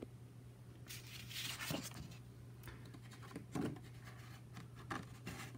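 Faint rustling and scraping of a sheet of card being handled and slotted upright into a balsa fuselage frame: a few soft brushes, over a low steady hum.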